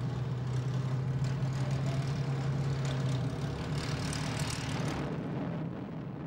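Supermarine Spitfire's V12 piston engine running at low power as the fighter taxis, a steady propeller-engine drone. About three seconds in the even hum gives way to a noisier, rushing sound that eases off near the end.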